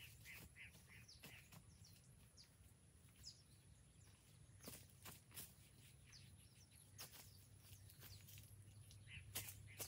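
Near silence in the open air: faint short bird chirps in the first two seconds and again near the end, with a few scattered soft clicks in between.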